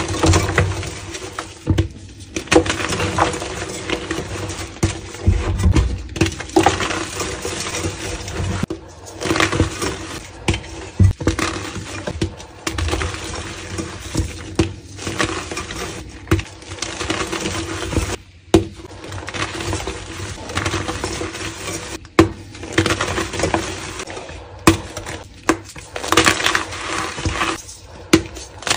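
Soft dyed gym chalk blocks crushed and crumbled by hand into powder: irregular crunching and crackling with frequent sharp snaps, in bursts separated by brief pauses.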